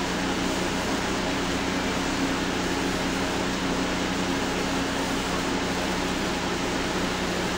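Steady background hum and hiss from a running machine, unchanging throughout, with no handling sounds.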